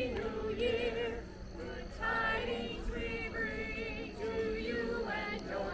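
A group of carolers singing a Christmas carol together, with long held notes.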